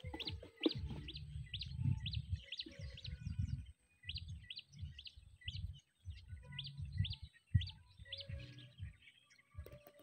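A bird calling a long run of short, rising chirps, two to three a second, over low rumbling noise.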